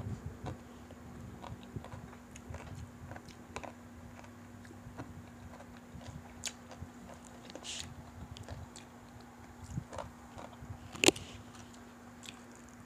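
Chewing and crunching of crispy fried chicken, with scattered small clicks and crackles as the chicken is pulled apart by hand. One sharp, louder click comes about eleven seconds in, over a steady low hum.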